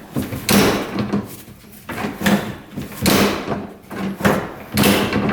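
Cargo-bed tailgate of a Polaris Ranger 570 UTV being opened and shut, giving about five separate clunks and rattles of the latch and gate. The tailgate is working properly.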